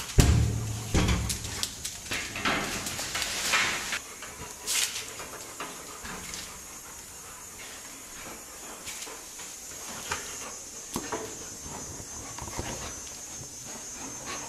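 Sun bears play-wrestling. A low pitched growl-like sound comes in the first second and a half and is the loudest part. Breathy huffs and scuffling follow, then quieter scattered knocks.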